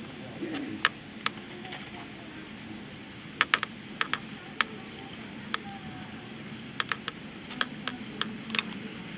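Irregular sharp clicks, about sixteen, some in quick pairs or threes, over a low steady background murmur.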